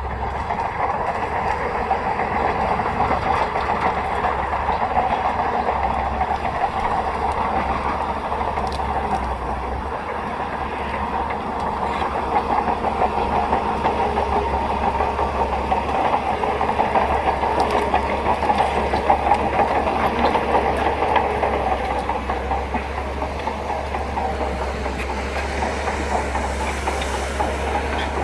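Crawler bulldozer's diesel engine running steadily under load, with the clanking rattle of its steel tracks as it pushes dirt.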